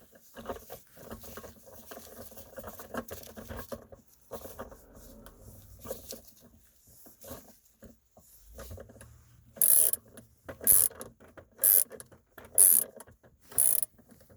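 Flex-head ratchet wrench tightening a shifter assembly mounting bolt: faint handling clicks at first, then from about ten seconds in a short burst of ratchet clicking about once a second, five in all, as the handle is swung back and forth.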